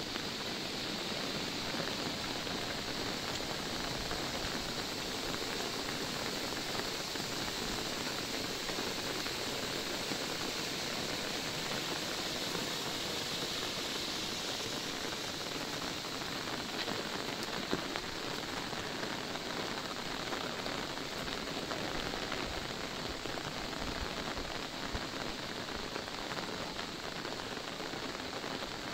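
Steady rain falling on an umbrella held just overhead and on the wet road around it, an even, unbroken sound of dense drops.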